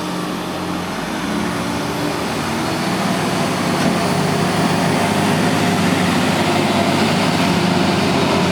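Diesel engines of heavy earthmoving machines running steadily, growing gradually louder as they come closer.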